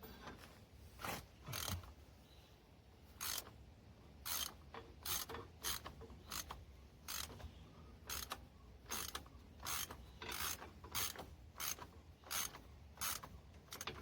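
Hand ratchet wrench clicking in short, evenly spaced bursts, about one to two a second, as a bolt is backed out.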